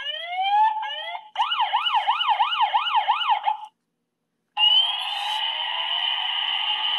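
A toy police helicopter's electronic siren sound effect from its small built-in speaker: rising whoops, then a fast wailing siren that stops a little before the 4-second mark. About 4.5 s in, a steady whirring sound starts as the toy's modded main rotor begins to spin.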